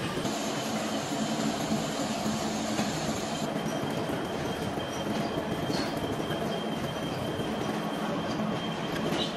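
Metalworking machinery in a gear factory running steadily: a dense mechanical noise with thin, high whining tones over it. One high whine stops about three and a half seconds in.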